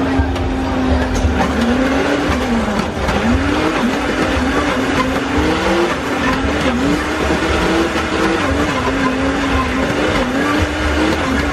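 Countertop blender motor running as it blends a thick fruit shake. From about two seconds in, its hum repeatedly dips and recovers in pitch as a tamper is pushed down into the jar and the load changes.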